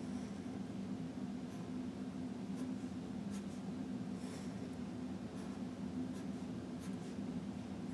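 Felt-tip marker writing on paper: short, faint scratchy strokes about once a second as letters are drawn. A steady low hum runs underneath.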